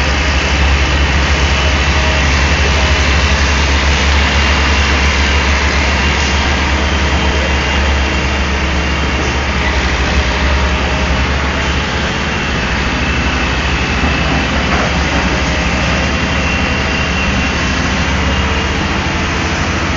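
Diesel engine of a Daewoo Solar 280 LC-III tracked excavator running steadily with a deep, even drone, easing slightly about halfway through.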